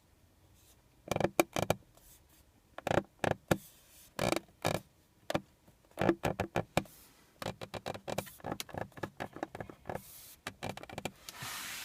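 Creaking inside the cabin of a 2013 Range Rover Sport: short creaks and clicks in irregular clusters, several in quick succession at a time.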